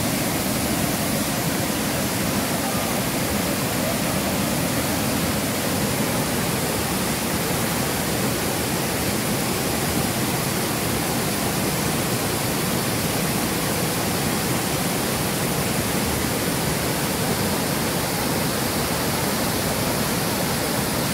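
A waterfall rushing steadily, white water pouring over boulders into a rocky stream.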